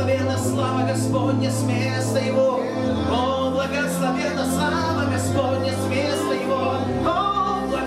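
A man singing a slow worship song, accompanying himself on a Yamaha electronic keyboard: sustained chords over a held bass line, with a light steady percussion beat about twice a second.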